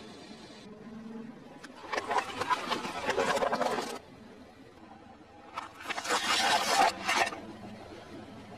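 A car tyre rolling slowly over eggplants and crushing them, a noisy crunch of about two seconds, then a second crush of about the same length as it flattens a metal cookie tin, over a low steady engine hum.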